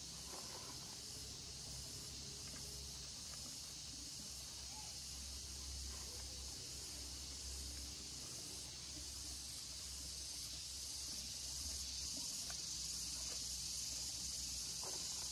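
Steady high hiss of insects in the garden, with a few faint clicks as pieces of wood charcoal are handled and pressed into a clay orchid pot.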